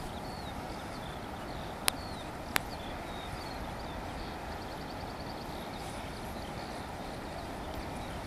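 Steady rushing outdoor background noise, with faint high bird chirps and twitters throughout and two sharp clicks about two seconds in.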